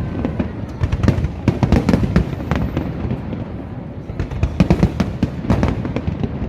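Aerial fireworks going off in rapid succession: a dense run of bangs and crackles, with a brief lull in the middle before another heavy volley. Music plays underneath.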